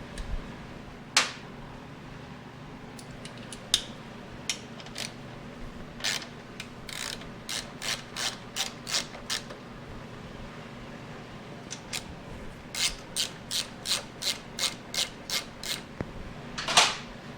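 Hand ratchet wrench clicking in two runs of evenly spaced clicks, about three a second, as fasteners are worked during a motorcycle teardown, with a few single louder metal clacks between the runs.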